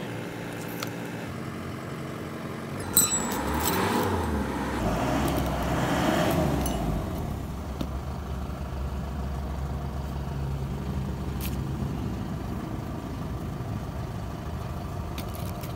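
A motor vehicle's engine nearby, swelling about three seconds in and then running on as a steady low rumble. There is a single sharp click at about three seconds.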